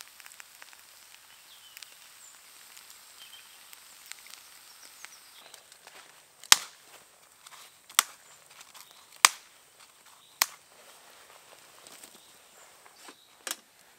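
A faint outdoor background broken about halfway through by a run of sharp cracks or knocks, roughly one every second or so, five in all.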